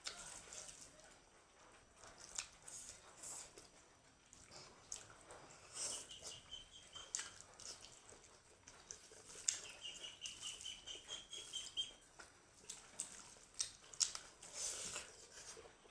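Mouth sounds of eating: irregular wet chewing clicks and lip smacks, with a faint high steady whistle heard twice in the background, the second one longer.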